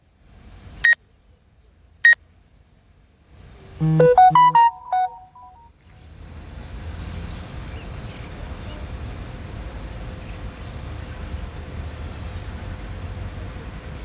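Two short, high electronic beeps about a second apart, then about four seconds in a quick run of stepped electronic tones, like a short jingle, lasting a second or so. After that a steady rushing background noise sets in.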